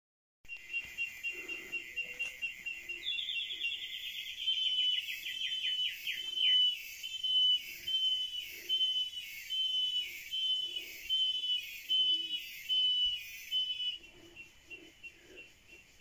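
A high, thin animal call in the forest, first a steady rapidly pulsing tone, then about three seconds in a regular run of short downward-sliding notes about two a second, fading out near the end.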